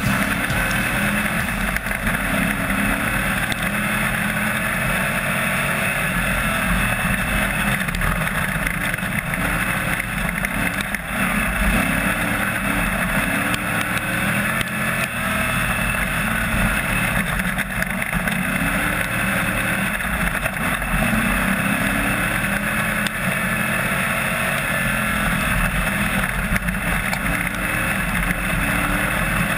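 AMCA national speedway car's engine heard from inside the cockpit at race pace, its pitch climbing and dropping every few seconds as the throttle is opened on the straights and lifted for the turns.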